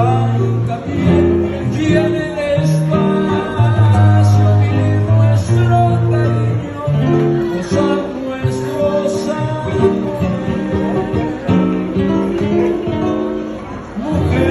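A man singing a romantic ballad in Spanish to his own strummed acoustic guitar, amplified through microphones.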